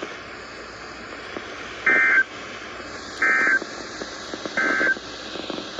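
Emergency Alert System end-of-message signal: three short, identical bursts of SAME data tones, a little over a second apart, over steady radio hiss. It marks the end of the alert.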